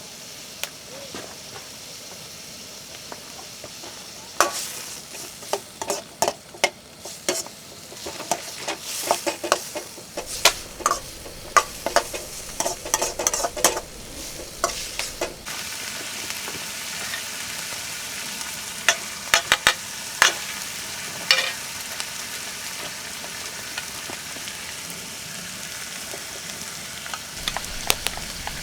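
Food sizzling in a pan over a campfire, with a metal utensil clacking and scraping against the pan in a busy flurry through the first half, then a few more strokes later.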